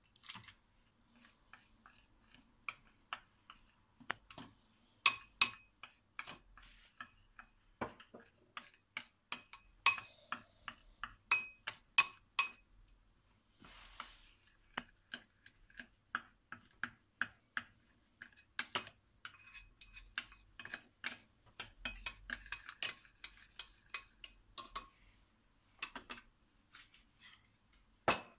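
Metal spoon clinking and scraping against a glass bowl while stirring flour and water into a thin paste. A quick, irregular run of clinks with a slight ring, the loudest about five and twelve seconds in.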